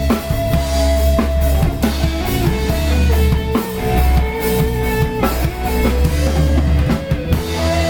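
Instrumental band music with a steady drum-kit beat under sustained bass and guitar notes.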